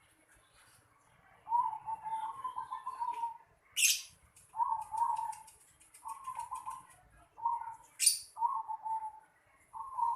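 Zebra dove (perkutut) cooing: about seven short, stuttering coo phrases, one every second or so. Two brief, sharp rustling bursts, about four and eight seconds in, are louder than the cooing.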